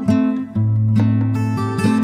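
Background music: acoustic guitar, plucked notes and strummed chords at an unhurried pace.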